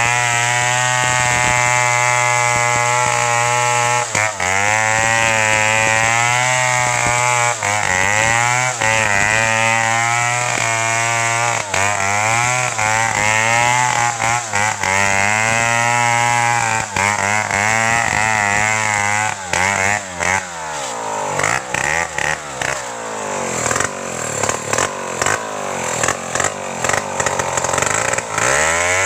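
Two-stroke chainsaw running at high revs as it cuts into the base of a standing tree trunk, its engine pitch dipping under load and recovering again and again. In the last third the engine speed swings up and down repeatedly.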